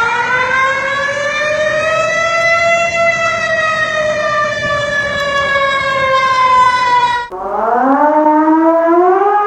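Warning sirens. One long wail rises slowly to a peak about three seconds in, sinks gradually, and cuts off abruptly about seven seconds in. A second siren then starts lower and climbs in steps.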